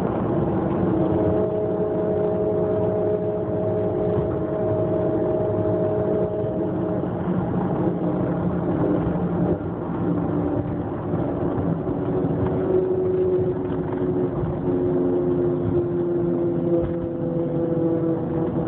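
A running vehicle with a steady whine of several tones over a low rumble, the 'strange noise' in question. The whine drifts slightly lower in pitch over the last few seconds.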